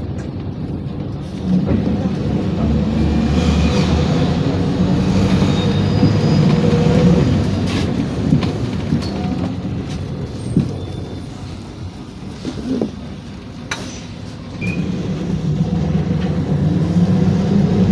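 Cabin ride noise of a PAZ Vector Next city bus on the move: a low engine drone with road and body rattle. The drone rises about a second and a half in, eases off for a few seconds past the middle, then builds again near the end, with occasional sharp rattles and clicks.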